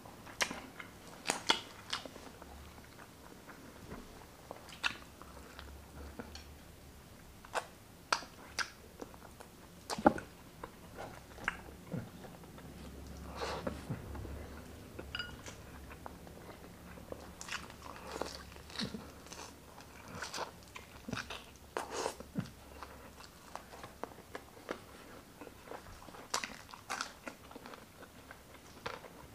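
Close-up mouth sounds of a man eating grilled chicken and rice with his hands: irregular wet chewing, biting and lip smacks, with sharp clicks every second or so.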